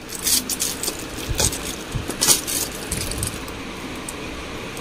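Shop goods in plastic packaging being handled: a string of rustles and sharp clicks, busiest in the first half, over a steady background hum.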